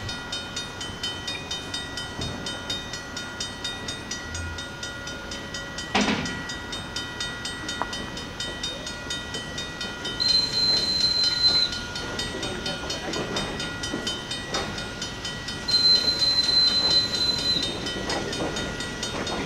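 Grade-crossing bell ringing steadily, about two and a half strokes a second, as a passenger train rolls slowly through the crossing. A sharp clank comes about six seconds in, and two high, steady squealing tones of a second or two sound about ten and sixteen seconds in.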